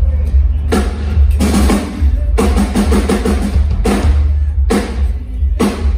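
Drum kit played loud through a stage PA during a sound check: a heavy low end from the kick drum, with drum hits coming singly and in quick runs, each ringing out briefly.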